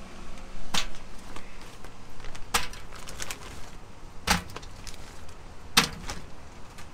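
Ears of shucked corn being set one by one into an aluminum steamer pot, with four sharp knocks as they strike the metal basket, about one every one and a half seconds, and a few fainter clicks between.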